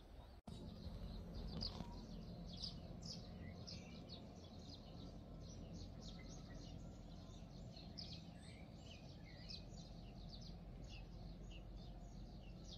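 Birds chirping: many short, high calls, several a second, over faint steady low background noise.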